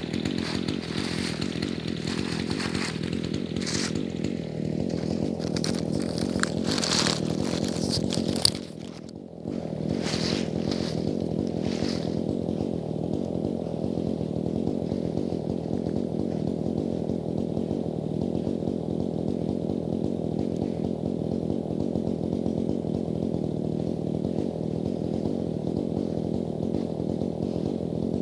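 Dolmar chainsaw running at speed and cutting wood, with a brief drop in level about nine seconds in, then running steadily.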